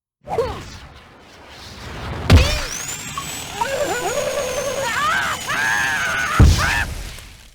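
Cartoon soundtrack: high-pitched, wavering squeaky character vocalizations and sound effects, with two heavy thumps, one about two seconds in and a louder one near the end.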